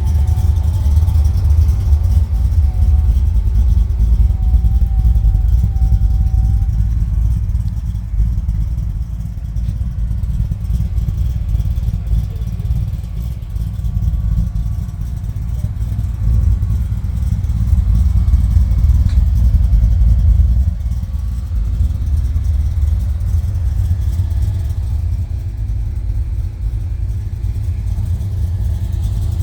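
V8 car engine idling with a deep rumble.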